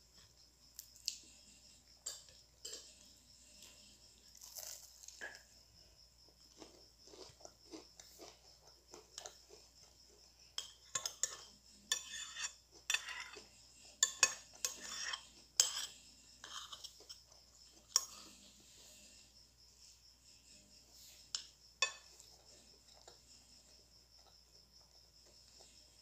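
A metal spoon scraping and clinking on a plate during eating, with chewing of crunchy fried chicken; the clinks are thickest in the middle stretch. A steady high chirping of crickets goes on underneath.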